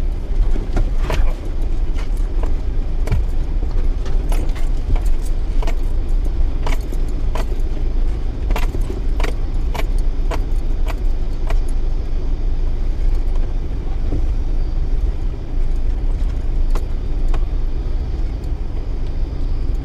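Mitsubishi Triton crawling slowly in first gear low range over rough ground, heard from inside the cab: a steady low engine and road rumble with frequent sharp rattles and clicks of loose items as the truck jolts, easing off in the second half.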